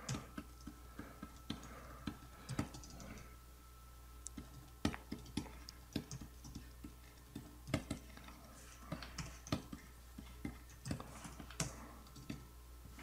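Faint, irregular clicks and taps of a computer keyboard and input devices during digital painting, over a faint steady hum.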